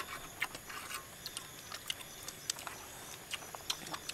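Scattered light clicks and taps of spoons and chopsticks against bowls and the wok as people eat, irregular and faint, over a steady high insect hum.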